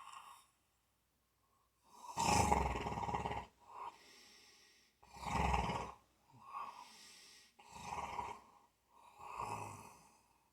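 Snoring in slow breathing cycles. Two loud, rattling snores about three seconds apart, each followed by a softer breathy exhale, then two quieter snoring breaths near the end.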